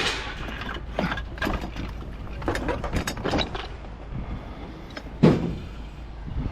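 Irregular knocks and clatter over a low rumble, with one heavy thump about five seconds in.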